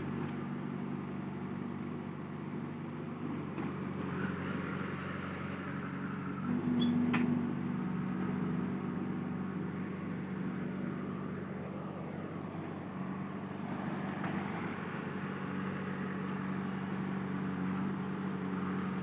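Diesel engine of a JCB backhoe loader running steadily, briefly revving up about seven seconds in.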